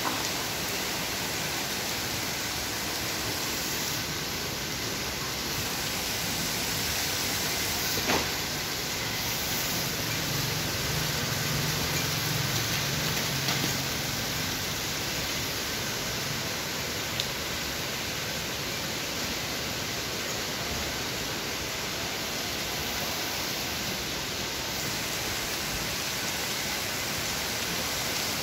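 Heavy rain falling steadily, an even hiss of downpour. A single sharp knock sounds about eight seconds in, and a faint low rumble rises and fades midway.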